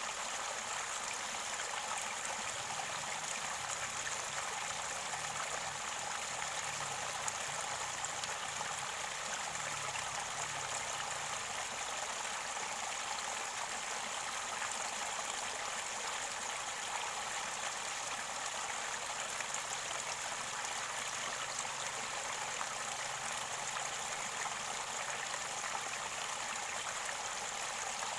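Mountain river water running and gurgling steadily near its spring source, an even rushing noise throughout.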